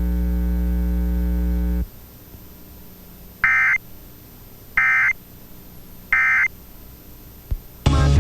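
Emergency Alert System end-of-message signal: three short bursts of warbling digital data tones, each about a third of a second long and spaced about a second and a quarter apart. Before them, a steady electrical hum cuts off about two seconds in.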